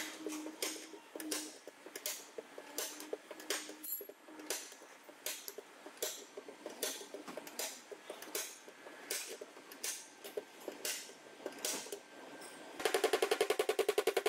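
Slide hammer on a stud-welder dent puller knocking as its weight is jerked against the stop, irregular sharp metallic knocks two or three times a second, to pull dents out of a car's steel rocker panel. Near the end comes a fast rattling burst of about a second and a half.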